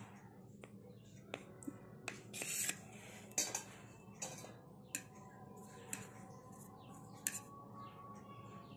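Kitchen knife cutting a soft sponge cake into slices, its blade clicking and scraping against the plate underneath: a scatter of faint sharp clicks and short scrapes.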